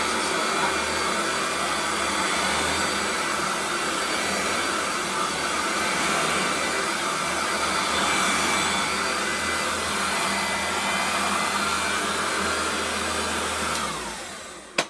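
Vintage Hoover Turbo Power Junior upright vacuum cleaner running steadily at full speed. Near the end it is switched off and the motor winds down with a falling whine, followed by a click.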